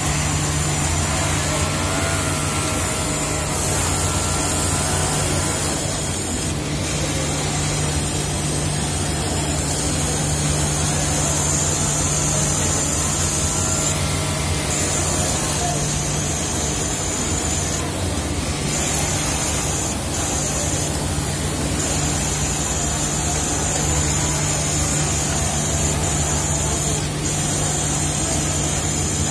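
Steady din of industrial sewing machines on a garment factory floor, including a Juki overlock machine gathering a sleeve frill, with a constant low hum. Several short bursts of high hiss come and go.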